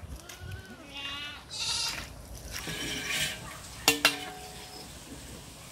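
A goat bleating faintly, two short wavering calls in the first second and a half. About four seconds in, two sharp metallic clinks of aluminium cooking vessels, leaving a brief ringing.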